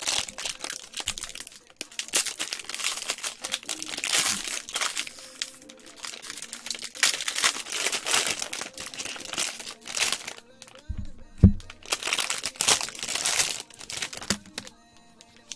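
Foil wrapper of a 2020 Bowman Draft baseball card pack crinkling and being torn open in gloved hands, in a long run of irregular crackles. Two short thumps about 11 seconds in, then more crinkling before it goes quieter near the end.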